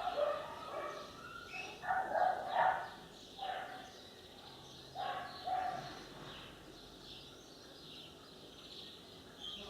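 A dog barking, about five short barks in the first half, then quieter.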